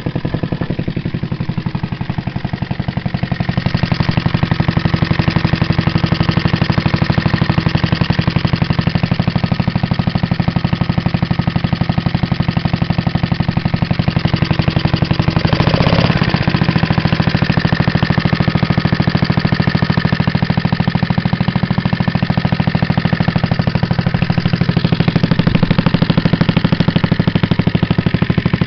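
Small JAP air-cooled single-cylinder stationary engine running steadily, with a rapid, even firing beat; it grows a little louder a few seconds in and holds there, with one brief surge around the middle.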